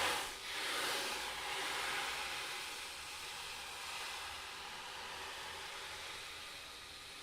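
Ocean drum tilted back and forth, the beads rolling across the drumhead in a hissing wash that imitates waves on the shore. It swells a couple of times early on, then slowly grows softer.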